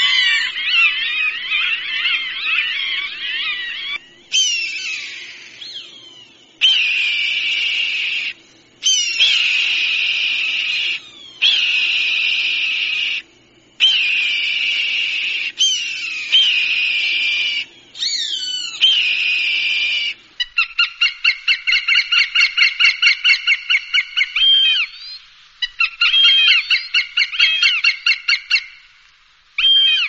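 Recorded hawk calls played back to scare birds: a series of high calls with sweeping pitch, in short clips that cut in and out abruptly, then from about twenty seconds in a rapid run of sharp notes, about six a second.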